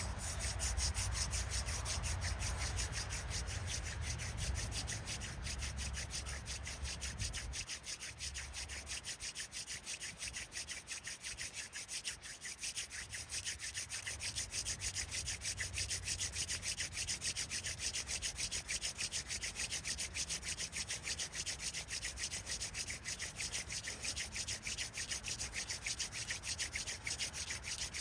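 Hand drill for friction fire: an elderberry spindle spun back and forth between the palms, grinding into a cottonwood fireboard with an even, rhythmic rasping, one pulse for each stroke. The board is heating to the point of smoking as dark char dust collects in the notch. A low rumble runs under the first several seconds.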